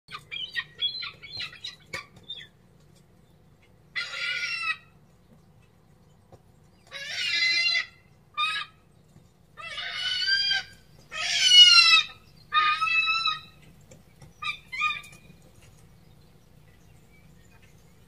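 Herring gull calling: a quick run of short, clipped notes, then a series of about seven longer calls spaced a second or two apart. The loudest call, near the middle, falls in pitch.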